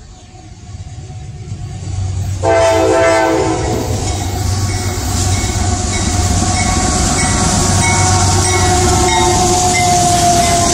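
Train approaching with a rising rumble; about two and a half seconds in a locomotive's air horn sounds a chord, loudest at its start, and the train then runs past loudly with a steady low rumble of engine and wheels.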